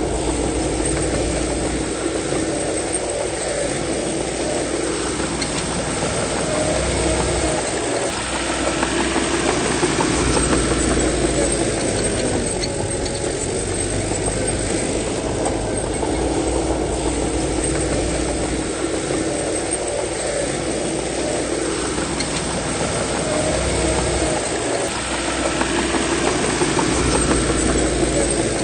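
Bulldozer's diesel engine working under load, its note rising and falling in slow cycles several seconds apart, with steady metallic clatter from the machine.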